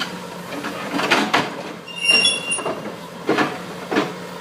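Excavator tearing at a steel bridge: metal knocking and scraping, with a high squeal of steel being bent or dragged about two seconds in, over a steady low engine drone.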